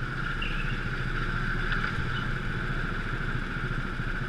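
Go-kart engines running at low speed, a steady drone as the karts crawl along nose to tail in a queue.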